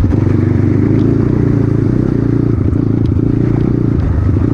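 Off-road motorcycle engine running at a steady, even pace, loud and close.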